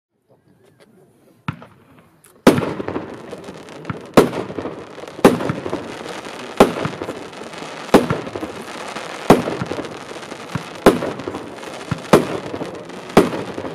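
A 13-shot, 30 mm consumer fireworks battery firing its shots one after another: a faint fizz and a small pop, then about nine sharp bangs roughly every second and a quarter. Between the bangs there is a steady crackling hiss from the crackling-tipped gold palm bursts.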